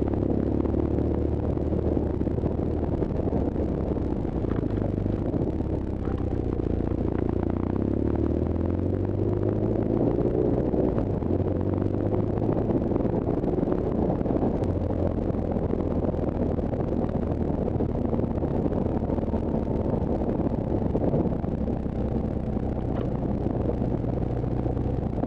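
BMW R1200GS boxer-twin engine running under way on a dirt road, heard from the rider's helmet, its pitch rising and stepping with throttle and gear changes, most plainly about a third of the way in, over a steady rush of wind and tyre noise.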